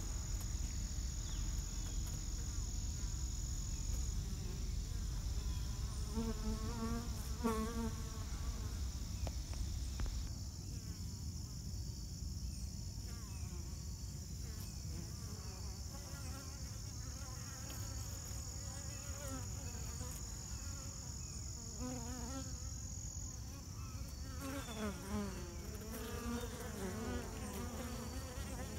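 Honeybees buzzing close up at a hive entrance, the wing buzz wavering in pitch as bees fly near. It is strongest about six to eight seconds in and again over the last several seconds. A steady high-pitched insect trill runs underneath.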